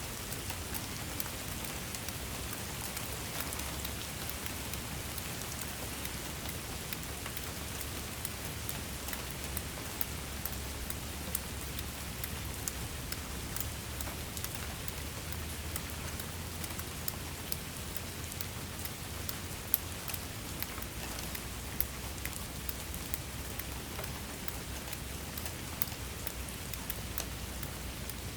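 Steady rain: a constant hiss with many sharp drop ticks striking a surface, over a low rumble.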